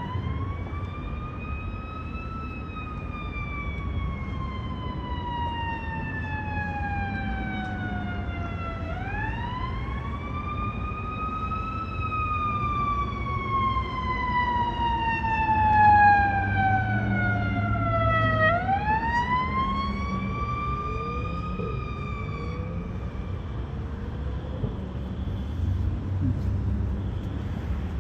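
Fire truck siren wailing in three slow cycles, each a quick rise in pitch followed by a long, slow fall, loudest around the middle. The siren fades out on its third rise, about two-thirds of the way through, leaving a low rumble of engine and traffic.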